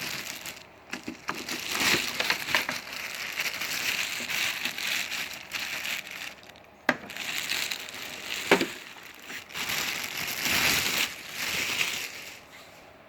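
Packaging around a dehumidifier rustling and crinkling in uneven bursts as it is unwrapped and handled, with two sharp knocks about seven and eight and a half seconds in.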